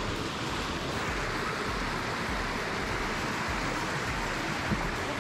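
Mountain stream rushing over rocks: a steady hiss of white water.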